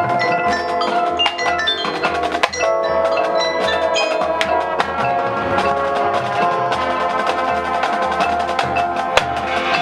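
Marching band front ensemble playing a mallet percussion passage: marimba, glockenspiel and chimes ringing in quick repeated notes over a steady low pulse.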